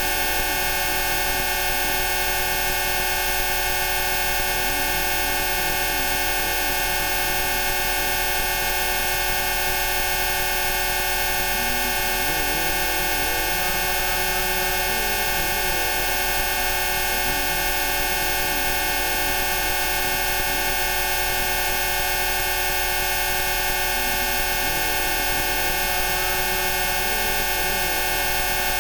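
Many steady electronic tones layered into one dense, unchanging chord from low to very high pitch, with a faint wavering drone beneath: a stacked Rife frequency track.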